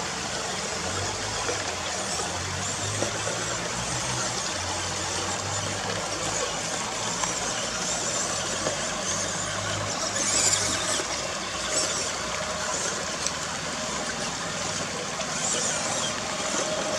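Steady rush of a shallow rocky creek, with the small electric motor and plastic gears of a 1/18 scale RC crawler whirring under it as the truck drives through water and over stones. There is a louder, brighter burst about ten seconds in.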